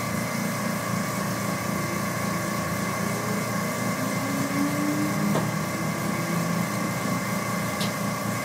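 Steady mechanical hum of a running machine, with a few faint clicks.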